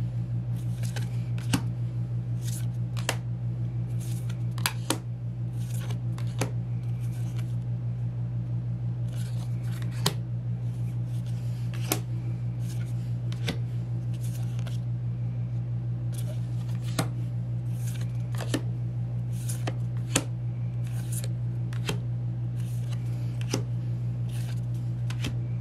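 Stiff glossy photocards slid one at a time off the front of a handheld stack and tucked to the back, a short sharp click or swish about every one and a half seconds. Under it runs a steady low hum.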